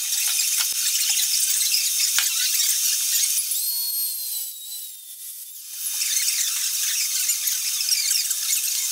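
Horizontal milling machine fly-cutting the teeth of a solid brass escapement with a hand-ground high-speed-steel tool, a steady high-pitched hiss of cutting. The hiss drops away for about two seconds past the middle, leaving a faint, slightly falling whistle, then comes back at full level.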